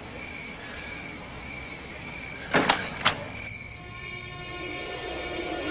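Crickets chirping, broken by two sharp cracks about half a second apart roughly two and a half seconds in. A film score of long held tones then comes in.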